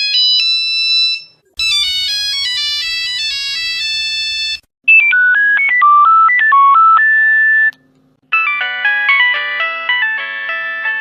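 Nokia mobile phone ringtones played back one after another: short electronic melodies of beeping notes. The tune changes about every three seconds, with a brief silent gap between tunes. One of the tunes has a low steady hum under it.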